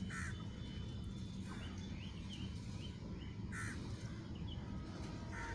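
Birds calling: a short harsh call three times, at the start, about three and a half seconds in and near the end, with smaller chirps between, over a low steady rumble.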